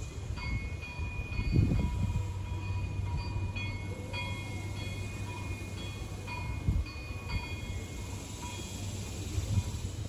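Wind gusting over the microphone, strongest about one and a half seconds in, over a steady low hum. High thin squealing tones come and go several times.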